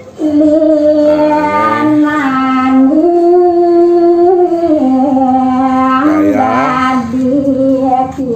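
A woman singing long, slow held notes that step up and down between a few pitches, with a quick ornamental turn about six seconds in.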